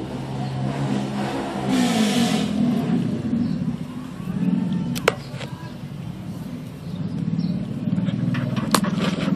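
Dog whining and crying in drawn-out, low, wavering tones right against the phone's microphone, with a short breathy rush about two seconds in. Two sharp knocks against the phone, one near the middle and one near the end.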